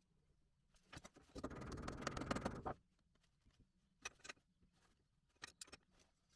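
A scraping sound lasting about a second and a half, followed by a few light clicks and knocks.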